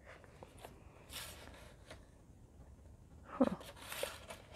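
Quiet handling of videotape cases: a few soft rustles and light knocks, with one louder knock about three and a half seconds in.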